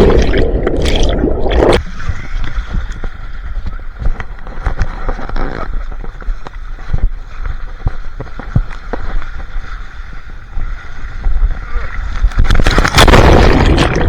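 Water rushing and sloshing, with loud splashing bursts at the start and again near the end, then cutting off abruptly.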